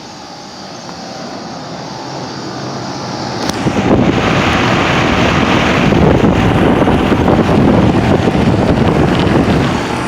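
Outdoor unit of a 2006 Rheem 3-ton central air conditioner running in heat mode, its condenser fan and Copeland scroll compressor making a steady hum. The sound grows louder over the first few seconds and becomes a loud rush of air with a low rumble from about four seconds in, easing slightly near the end.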